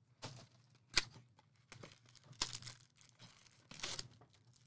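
Packaging on a box of trading cards being cut and torn open: scattered short tearing and crinkling sounds, with a sharp click about a second in.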